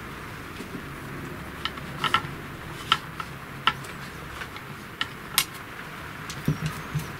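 Handling noise: a few light, sharp clicks and taps as hands shift the MDF spoilboard and its screws and fittings on a 3018 CNC router's bed, over a steady background hiss.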